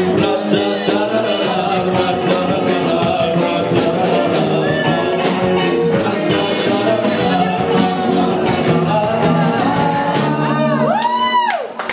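Live rock band playing: electric guitar, drums and a male lead singer. About ten seconds in, a single note sweeps up and back down, and the music briefly drops away near the end.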